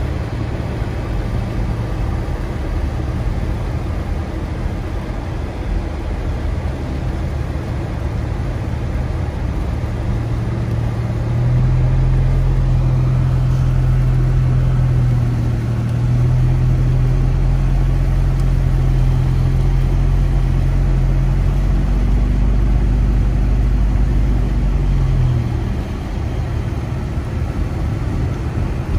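Car cabin noise while driving slowly on a slushy, snow-covered road: the engine and the tyres on slush make a steady low drone. A louder, steady low hum joins from about eleven seconds in and drops away near twenty-five seconds.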